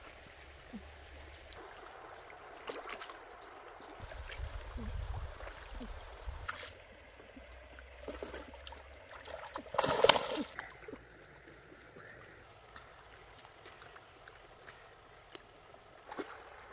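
Stream water sloshing and trickling around a person wading waist-deep and working fishing lines by hand, with scattered small splashes and one loud splash about ten seconds in.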